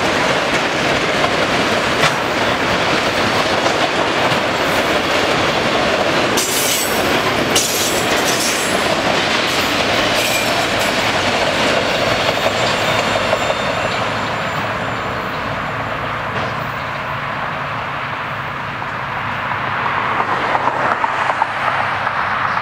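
Empty autorack cars of a long freight train rolling past, steel wheels running on the rails, with a brief high squeal about seven seconds in. The noise eases off about two-thirds of the way through as the end of the train goes by.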